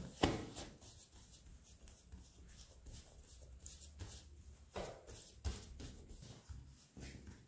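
Hands handling pizza dough on a floured stainless-steel counter: a sharp thump just after the start as the lifted dough comes down onto the steel, then soft pats, presses and rustling as the fingertips spread it flat, with a few light knocks near the end.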